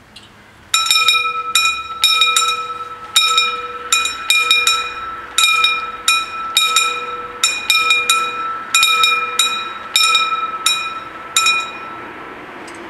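Two level-crossing warning bells striking single ringing strokes in an irregular pattern, about two to three a second, starting about a second in and stopping near the end. They ring while the crossing barriers lower and fall silent once the barriers are down.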